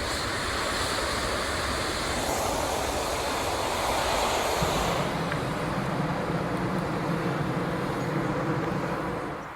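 Hot air balloon's propane burner firing in one long continuous blast, a steady rushing noise; a deeper rumble joins about halfway through.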